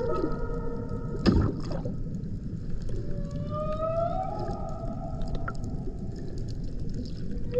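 Humpback whale calls heard underwater: long tonal moans with overtones, one held tone fading in the first moments and another rising in pitch about three seconds in, then holding, over a steady low underwater hiss. A short knock sounds about a second in.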